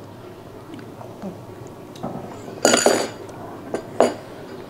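Tableware sounds: spoons and forks clinking and scraping against bowls and plates as food is served and eaten, a few short sharp clinks, the loudest a little past halfway.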